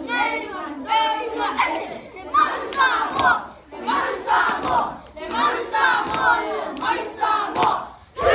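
A group of children chanting together in loud, rhythmic shouted phrases, a new phrase about every second.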